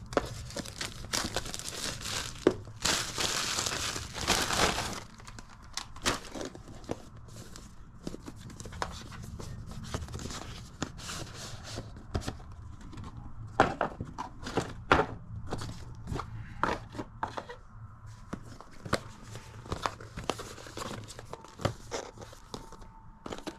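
Packaging being torn and crinkled open by hand, with dense rustling for about the first five seconds, then scattered clicks, taps and short rustles as the box and its contents are handled.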